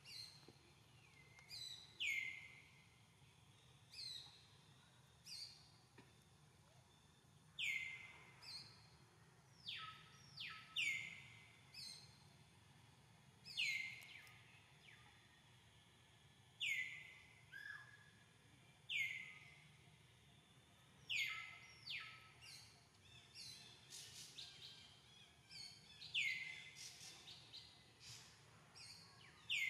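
Birds calling: short, sharp chirps that slide down in pitch, repeated every second or two.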